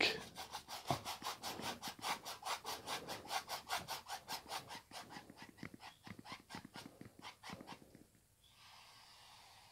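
Oil-paint brush scrubbing rapidly back and forth on canvas, about six short strokes a second, softening and blending wet paint. The strokes fade out and stop about two seconds before the end.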